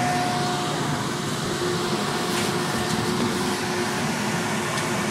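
Gondola lift machinery running steadily as the cabin moves through the station: a constant mechanical hum with faint steady whining tones and a few light clicks.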